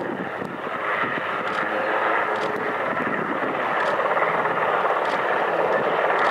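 Distant aircraft engines droning over the valley, growing gradually louder as the aircraft approach.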